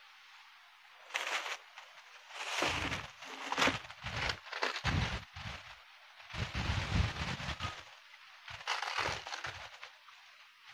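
Water from a watering can splashing onto corn-cob mushroom beds on a bamboo rack in irregular bursts, with crackling and rustling as the plastic cover sheet is handled.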